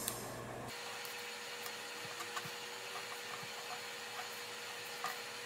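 Steady faint hiss with a thin steady hum, and a few faint scratches of a pencil drawing short lines on paper along a card's straight edge.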